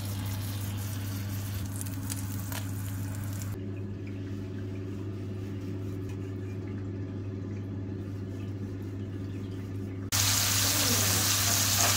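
A steady low hum with a few faint overtones runs throughout, with a few light clicks in the first few seconds. About ten seconds in, a loud steady hiss like running water starts suddenly.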